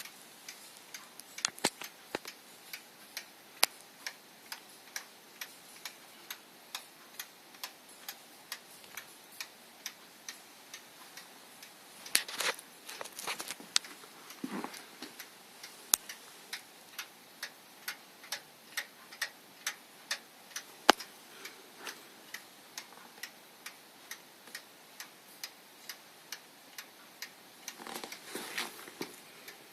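Sharp clicks at a steady pace of about two a second from inside an unplugged charger, of unknown cause. A few brief noisier rustling bursts break in about twelve seconds in and near the end.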